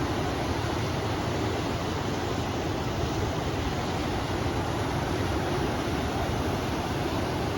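River water rushing steadily, mixed with wind.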